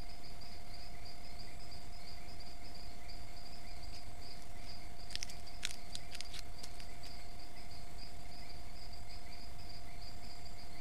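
Steady chorus of insects in tropical forest: a continuous fast-pulsing high trill over a fainter, lower pulsing buzz, with a thin steady tone beneath. A quick run of sharp clicks comes between about five and seven seconds in.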